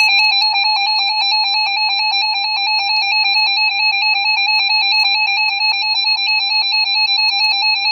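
Electronic emergency alert tone, loud and rapidly warbling at a steady high pitch. It is the attention signal that comes ahead of a tornado emergency warning.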